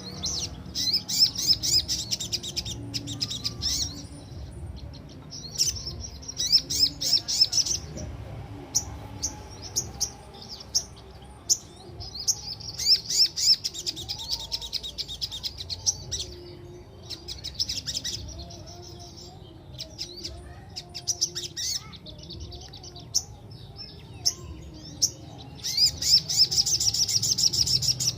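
A sogok ontong, a sunbird, singing in bursts of fast, high rattling trills, each lasting a few seconds with short pauses between: the sharp rolling song kept as a tutor recording for caged birds.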